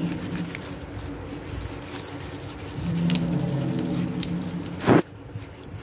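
Folded tissue rubbing over oil pastel on paper, blending the colour, under a low steady hum that comes and goes twice. A single sharp thump near the end.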